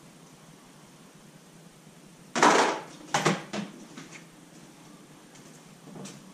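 Hard objects knocking on a workbench: one loud knock about two and a half seconds in, then a few lighter clacks.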